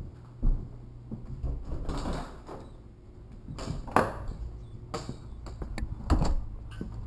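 Footsteps and knocking thuds as someone walks across hardwood floors, then a front door being opened and shut, with a heavy thump about six seconds in.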